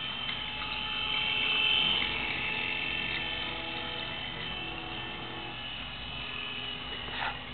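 Small electric motor of a battery-powered toy train whirring steadily as it runs along a wooden track, a little louder about two seconds in.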